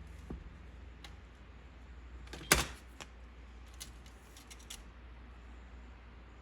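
Scattered light clicks and handling noises over a low steady hum, with one sharp, loud snap about two and a half seconds in.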